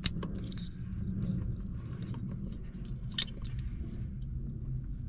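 Plastic wiring-loom connectors being handled and clicked together, with a sharp click at the start and another about three seconds in, and small rattling ticks between, over a steady low hum.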